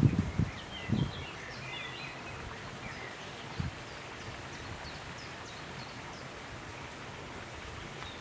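Small birds chirping in quick short notes over a steady outdoor background hiss, with a few brief low thumps near the start and again about three and a half seconds in.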